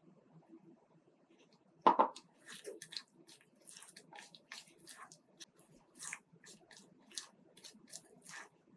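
Kitchen handling sounds while preparing cake batter: one sharp knock about two seconds in, then a run of short, soft scraping and clicking strokes, two or three a second.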